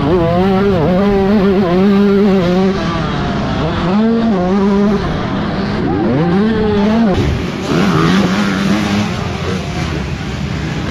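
Yamaha YZ125 two-stroke motocross engine revving hard under the rider, its pitch climbing and dropping again and again with throttle and gear changes. About seven seconds in this gives way to dirt bikes running on the track, heard from farther off.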